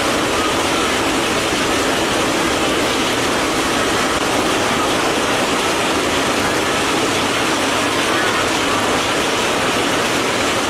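Heavy rain falling steadily onto standing floodwater, an even, unbroken hiss.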